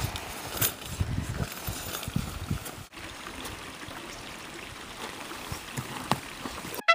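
Coffee trickling and spilling from an AeroPress on an uneven log, with scattered knocks of the brewer being handled.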